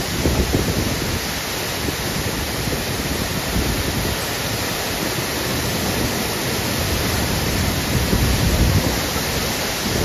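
A large waterfall plunging down a high rock cliff into its pool: a steady, loud rush of falling water.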